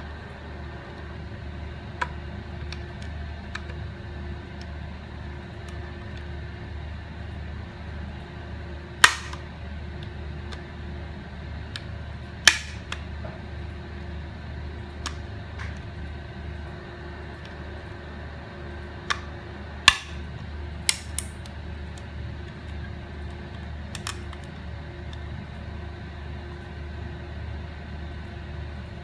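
Sharp, isolated plastic snaps and clicks, about seven spread irregularly, as a flat screwdriver pries apart the clipped plastic shell of an ADATA HV620 external hard drive along its seam, the latches popping loose. A steady low hum lies underneath.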